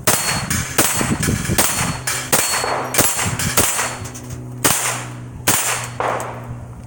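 Semi-automatic .22 LR gunfire from an AK rifle fitted with a Grizzly rimfire conversion kit: about ten shots, quick for the first couple of seconds and then slower, with some hits ringing off steel plates.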